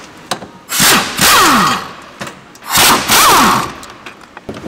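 Handheld power tool spinning a socket on a bolt in two bursts of about a second each, its motor pitch dropping through each burst, as a bolt is run out.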